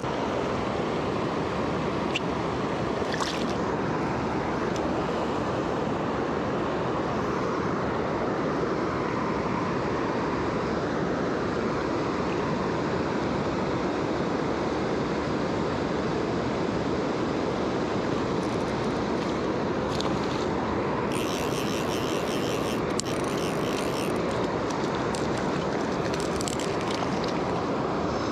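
Steady rush of a fast river flowing around a wading angler. Short bursts of higher hiss come and go about three-quarters of the way through.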